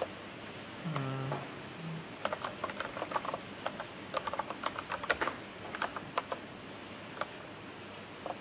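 Typing on a computer keyboard: irregular runs of keystrokes that start about two seconds in and stop about seven seconds in.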